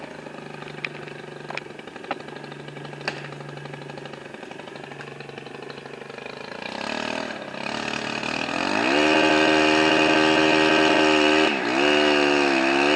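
Gas chainsaw idling for about seven seconds, then revved up and held at full throttle, dropping off briefly near the end and revving up again.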